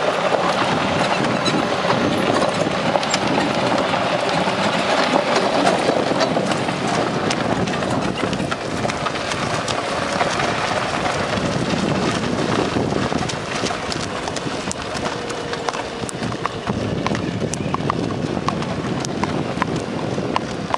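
Horse's hooves clip-clopping at a walk. Through the first half there is a steady crunch of gravel under rolling tyres. Later the hoofbeats ring out as sharper, separate clicks on a paved road.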